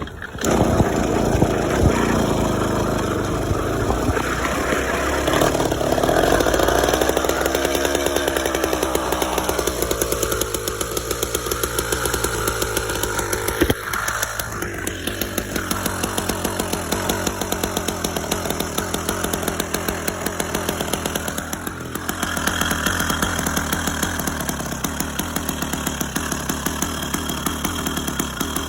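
Small gas engine of a motorized bicycle running hard, its revs rising and falling with the throttle and dropping briefly twice. It barely runs, which the mechanic traces to a leaking exhaust gasket and base gasket.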